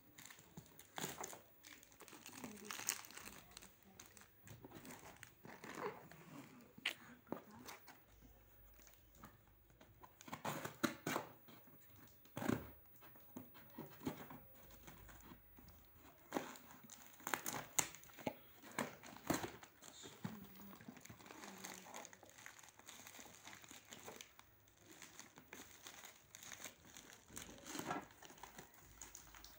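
Glossy printed packaging wrap being torn and crumpled off a parcel box by hand: irregular crinkling and ripping with frequent sharp crackles.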